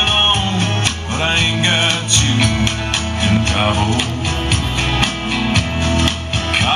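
Country song with a singer, guitar and a steady beat, the music for a line dance.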